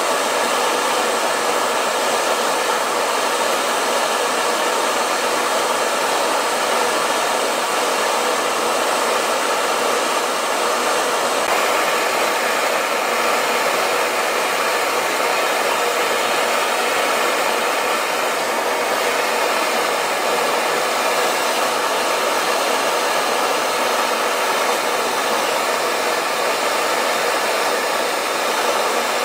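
Metal-spray (thermal spray) gun giving a loud, steady hiss as it sprays a metal coating onto the worn bearing seat of a screw compressor shaft to build it back up.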